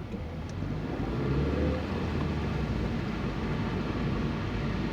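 Car engine and road noise heard from inside the cabin, the engine note rising about a second in as the car picks up speed.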